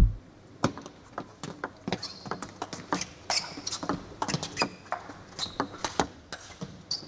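Table tennis rally: the ball clicking sharply and irregularly off the rackets and the table, with shoes squeaking on the court floor. It opens with a short low thud from the broadcast's logo transition.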